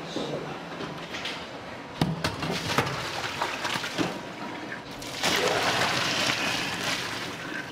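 A few metal knocks and clatters in a steel sink, then from about five seconds in a stream of hot water pouring and splashing over fried tofu pieces in a stainless steel colander, fading near the end.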